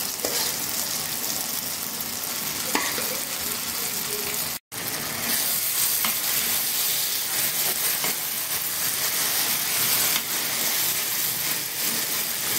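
Spiced tomato and garlic tempering in ghee sizzling in a metal kadhai while a spoon stirs and scrapes through it, with a few light clicks of the spoon on the pan. The sound cuts out to silence for a moment about four and a half seconds in, then the sizzling comes back louder.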